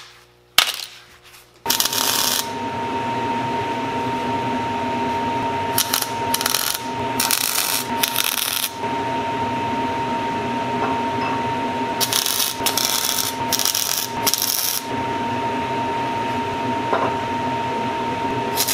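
Arc welder laying short tack welds on a steel collar and shaft: a few crackling bursts of arc, each under a second, in three groups with pauses between, over a steady machine hum with a held whine. Near the end a longer weld starts.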